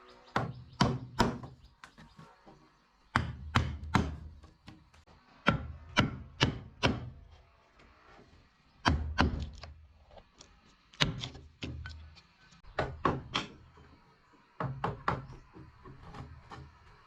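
Repeated blows on wood, in bursts of three or four quick strikes about every two to three seconds.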